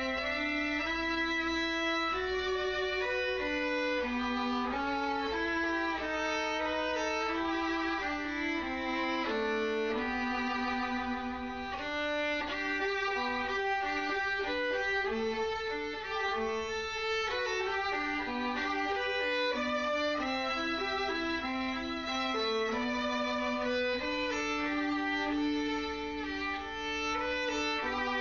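Background music: a violin playing a melody of long held notes with vibrato.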